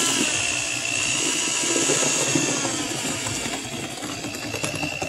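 Corded electric drill with a paddle mixer stirring a bucket of water, dish soap and granulated copper-wire chop tailings: a steady motor whine over the churning slurry.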